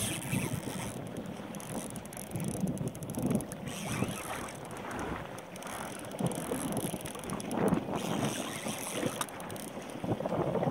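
Choppy sea water slapping and splashing against a kayak hull, with wind buffeting the microphone in uneven gusts.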